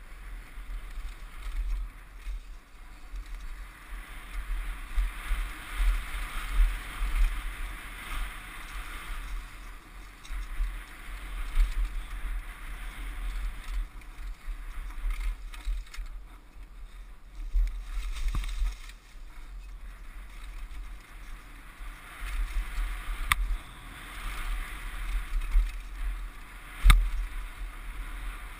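Mountain bike ride down a dirt and gravel trail: wind rumbling on the camera microphone over the hiss of tyres on loose ground, swelling and easing with speed. Two sharp knocks from the bike over bumps, the louder one near the end.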